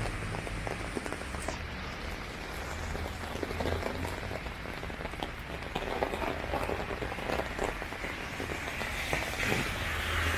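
Steady rain, with many separate drops tapping on an umbrella overhead.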